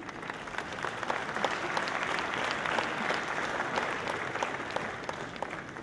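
Audience applauding: many hands clapping, building up over the first couple of seconds and dying away near the end.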